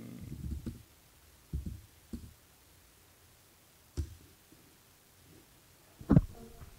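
A few soft low thumps and one sharp click from a laptop keyboard as a terminal command is typed and entered. Just after six seconds comes a short, loud vocal sound.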